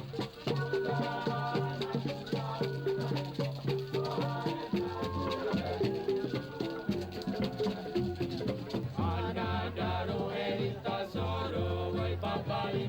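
Balinese bamboo music: struck, tuned bamboo instruments playing quick repeated notes over a deep bass line, with rattling shaken strokes. About nine seconds in, the playing grows busier and brighter.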